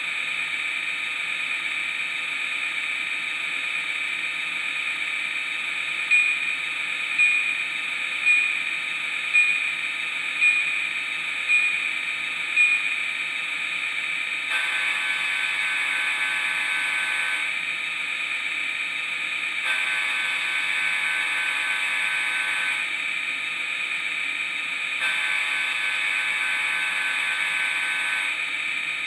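Digitrax sound decoder in an HO-scale Athearn SD40-2, playing an EMD SD45 sound file through its small speaker. The diesel prime mover idles steadily throughout. About six seconds in, the bell rings seven strokes, roughly one a second. Then the horn sounds three blasts of about three seconds each.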